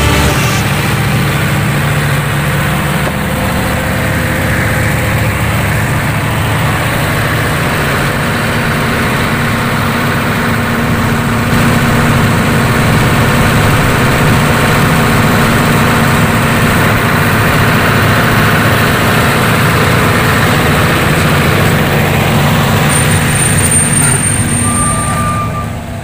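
Heavy diesel machinery engine running steadily under load, as a hydraulic pile driver's crane lifts and places concrete piles. It starts to fade out right at the end.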